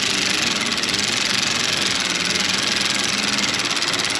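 Cordless power ratchet running steadily, turning a new spark plug down its threads in the plug tube of a supercharged 5.0 V8; it stops just after the plug reaches the bottom of its threads.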